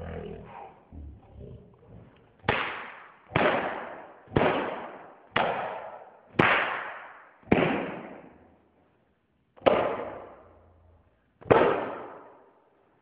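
Eight sudden bangs, each dying away over about a second. The first six come about one a second, then two more follow at wider gaps.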